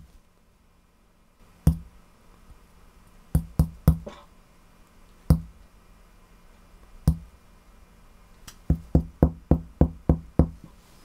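Fingers tapping the woofer cone of a small bookshelf loudspeaker: dull knocks, single taps a second or two apart, then a quick run of about eight taps near the end.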